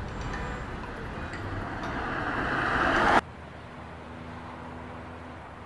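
Roadside traffic noise swelling steadily louder for about three seconds, then cut off abruptly. A quieter steady background with a faint low hum follows.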